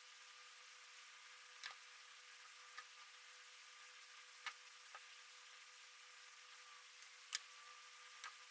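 Sparse small metal clicks and ticks as a Kaba Quattro dimple-lock cylinder is taken apart, one every second or so at uneven spacing, over a faint steady hum. The loudest click comes a little past seven seconds in.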